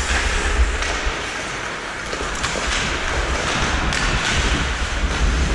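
Ice hockey rink play heard from a helmet camera: skate blades scraping the ice and a low wind rumble on the microphone, with a few sharp knocks scattered through.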